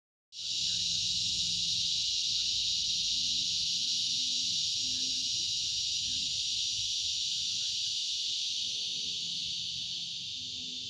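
Steady chorus of insects: a continuous high, hissing buzz with no breaks.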